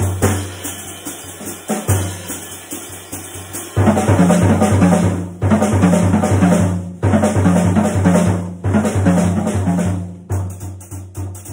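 Jazz drum kit playing a busy solo-style passage of snare, bass drum and cymbals, swelling into a louder, denser stretch from about four seconds in that eases near the end. Low double bass notes sound underneath.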